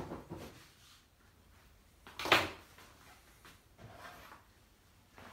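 One short, loud scraping knock about two seconds in, against a quiet small-room background.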